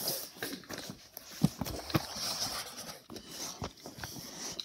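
Handling noise: rustling and rubbing as toys and the camera are moved about over a foam play mat, with a few light knocks of plastic, the sharpest about a second and a half and two seconds in.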